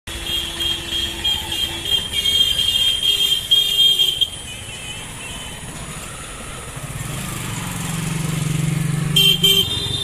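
Road vehicles passing: a high-pitched horn sounds on and off for about four seconds. Then a motorcycle engine grows louder as it approaches, and a horn beeps twice near the end.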